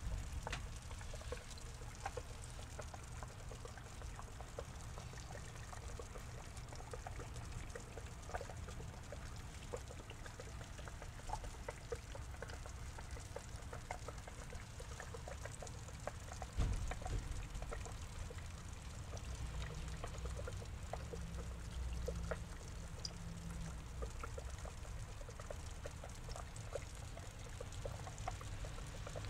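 A stream of water pours and trickles into a small pond, with a steady splashing and many small plinks. There is one dull thump a little past halfway.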